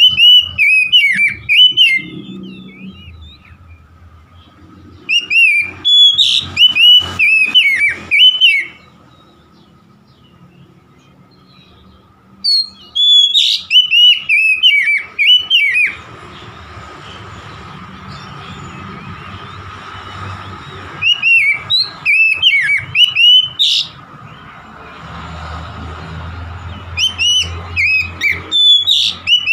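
Oriental magpie-robin singing: five loud bouts of rapid, varied whistled notes, each a few seconds long, separated by pauses of a few seconds.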